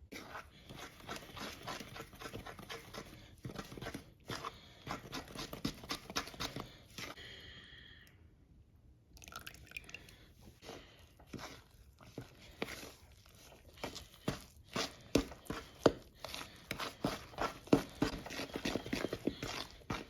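Cornbread batter being stirred by hand in a mixing bowl: a quick, steady run of short stirring strokes, with a brief pause about eight seconds in before the stirring resumes.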